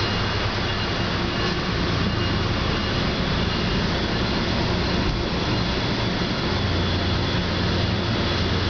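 Passenger train heard from inside a coach: a steady loud rumble with a low hum that grows stronger about two-thirds of the way through.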